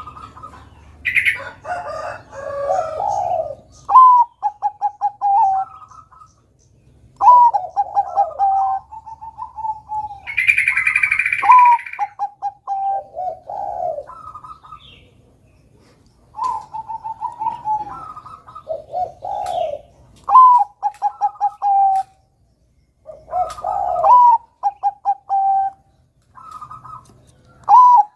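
Zebra dove (perkutut) cooing: about seven phrases, each opening on a higher note and followed by a quick run of short, even coo notes, repeated every three to four seconds. A brief noisy burst, higher in pitch, comes about ten seconds in.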